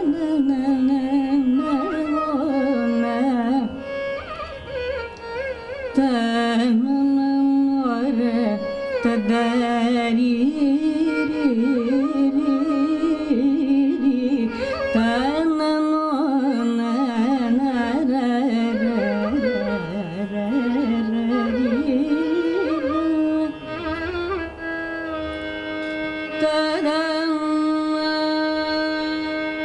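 A female Carnatic classical vocalist sings a richly ornamented melody, sliding and oscillating between notes, accompanied by a violin, over a steady drone. The voice drops back twice, around four and twenty-four seconds in, leaving a held note sounding.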